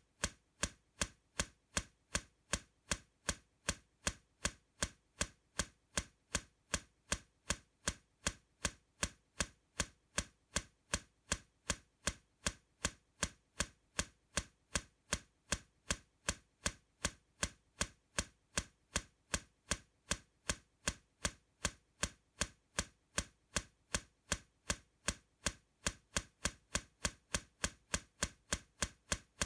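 Clock ticking steadily, about two ticks a second.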